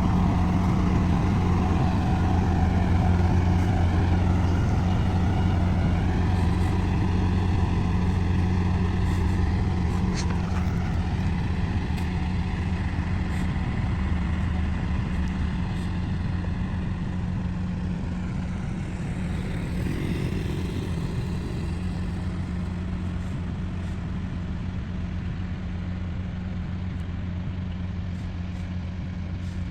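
Komatsu bulldozer's diesel engine running steadily under work, a deep continuous hum that slowly gets quieter toward the end.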